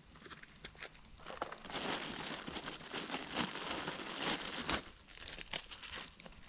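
Scattered crackles and pops from a curry pan of hot oil and spices over a campfire, with a louder, dense crackling rustle from about one and a half to nearly five seconds in.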